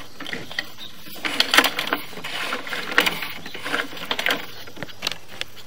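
Sewer inspection camera's push cable being fed by hand down the cleanout, an irregular clatter of clicks and rattles as the cable and reel move.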